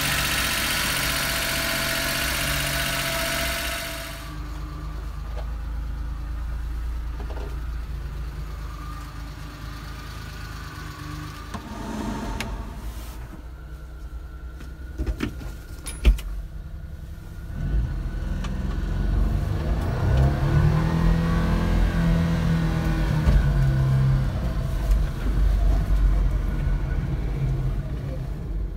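Small three-cylinder engine of a 1993 Suzuki Carry kei truck running, with a loud rushing hiss over it for the first four seconds. Then come a few clicks and knocks near the middle, and the engine revs up and down through the gears as the truck drives.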